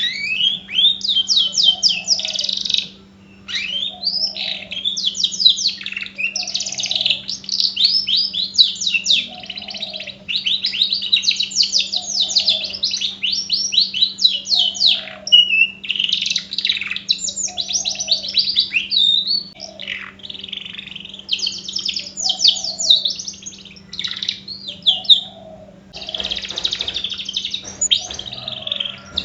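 Domestic canary singing almost without pause: long runs of fast, high trills and rolling phrases, the kind of song played as a lure to set other canaries singing.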